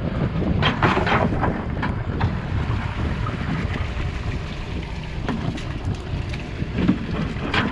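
Wheeled excavator's diesel engine running with a steady low rumble as it digs, with wind on the microphone.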